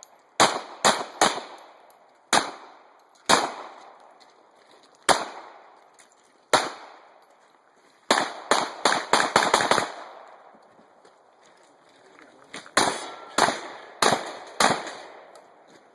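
Gunshots from a 9mm Smith & Wesson M&P pistol and a Remington 11-87 12-gauge semi-automatic shotgun fired at targets. First come several single shots a second or so apart, then a fast string of about eight shots around eight to ten seconds in, then another quick series of about six shots near the end.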